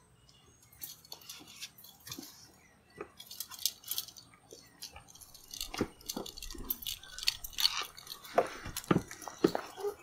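A car door being opened and people climbing out: irregular clicks, rustling of clothes and backpacks, and steps. It is sparse at first and busier in the second half.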